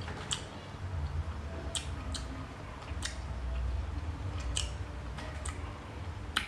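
Close-up eating sounds of a person eating steamed babylon snails dipped in sauce: chewing with scattered small sharp clicks.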